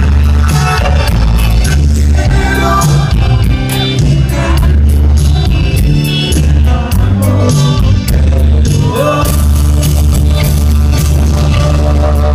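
A live band playing loudly: electric bass, electric guitar, keyboard and drums with a steady beat and a strong bass line.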